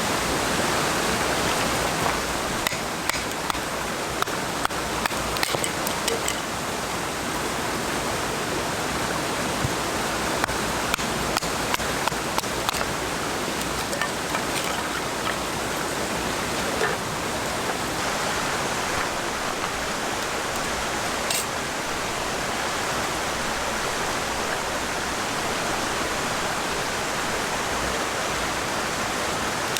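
Steady rush of flowing or falling water, with scattered small sharp clicks over it in the first half.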